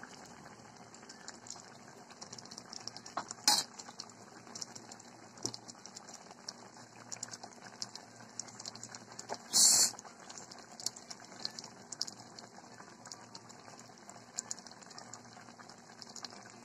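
Catfish simmering in coconut milk in a stainless steel pot: a steady bubbling with many small pops. Two louder short noises cut through, one a few seconds in and one about halfway through.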